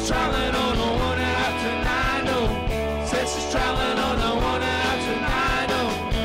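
Live rock band playing: electric guitars, bass guitar and drum kit, with a melodic line bending up and down in pitch over a steady beat.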